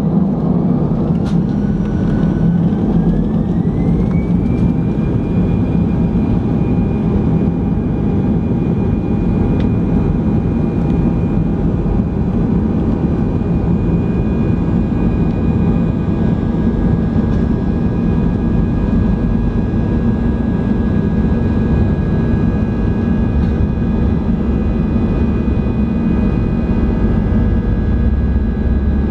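Airbus A319 jet engines spooling up to takeoff thrust, heard from inside the cabin: a whine rises in pitch over the first four seconds or so, then the engines run steadily at high power with a loud low hum as the airliner rolls down the runway.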